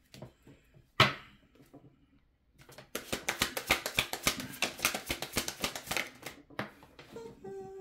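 Deck of cards being shuffled by hand: a sharp tap about a second in, then a rapid run of card clicks lasting about four seconds.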